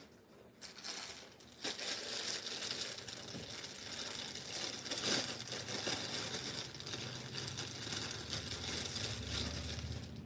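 Rustling and crinkling of plastic packaging and cloth as a folded suit is handled and smoothed out on a table, starting about a second in and carrying on as a continuous rough rustle.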